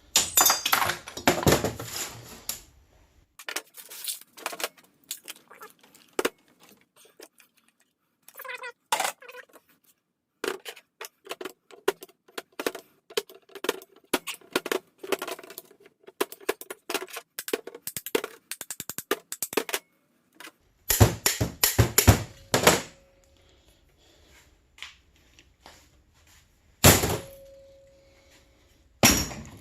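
Scrap metal being handled and sorted: runs of clanks and knocks of metal pieces against one another, with a couple of heavier impacts near the end that ring briefly.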